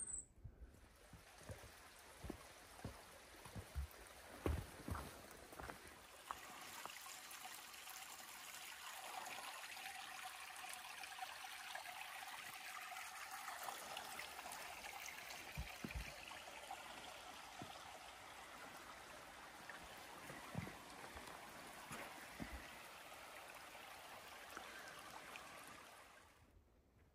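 A stream's rushing water, building up over the first several seconds and fading out near the end, with a few footstep thuds on the trail in the first few seconds and a few more later.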